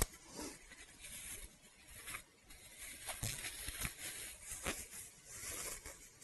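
Thin plastic produce bag crinkling and rustling faintly as it is handled and unfolded, with a few light clicks scattered through.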